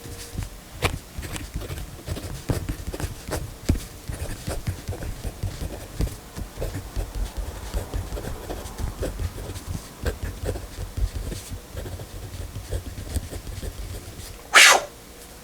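Pentel P315 0.5 mm mechanical pencil writing on paper: an uneven run of short scratching strokes and ticks, ending in one brief louder noise near the end.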